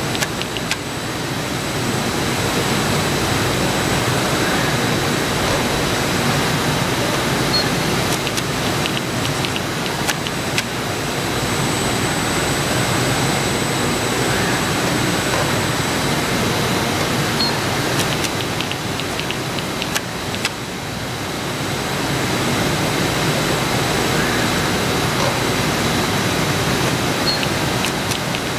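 Steady mechanical rushing of a robotic automated fiber placement cell running while the laser-heated head lays dry fiber tows. The noise dips briefly about every ten seconds, with a few faint clicks around the dips, over a faint steady high whine.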